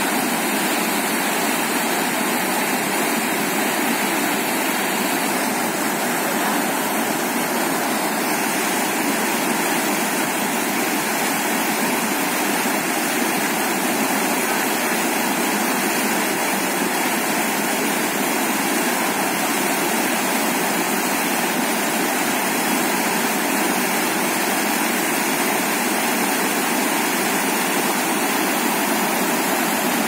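A waterfall's steady, even rush of falling water, holding the same level throughout.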